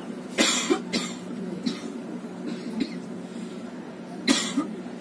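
A person coughing several times, with two louder coughs about half a second in and near the end, over the steady hum of a train carriage.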